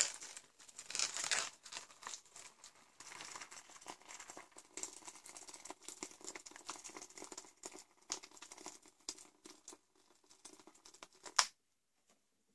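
Water poured from an electric kettle into a plastic meal pouch: a steady trickle with the pouch crinkling and ticking as it fills, ending with one sharp click near the end.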